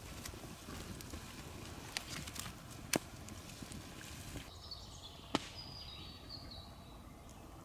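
Three sharp snaps over a steady outdoor background, with a short bird call in the middle.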